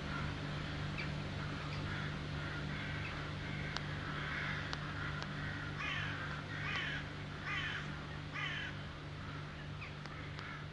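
Crow cawing: scattered fainter caws, then a run of four harsh caws in quick succession a little past halfway, over a steady low hum.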